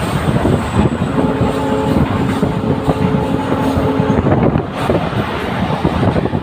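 Express passenger train running at speed: wheels clattering over the rails amid a constant rush of running noise. From about a second in, a steady multi-note tone sounds for about three seconds.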